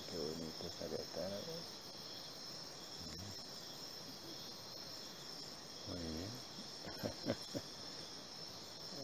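Insects trilling in a steady, high, even drone. A person's voice makes short sounds without clear words near the start, about three seconds in and about six seconds in, and a few sharp clicks come around seven seconds in.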